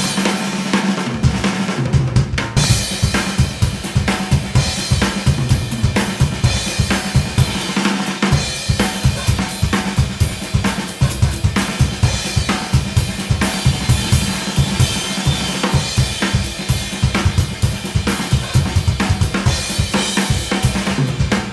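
An Animal acoustic drum kit played in a busy, driving pattern: rapid bass drum strokes under snare hits, with the cymbals washing in about two and a half seconds in and keeping going.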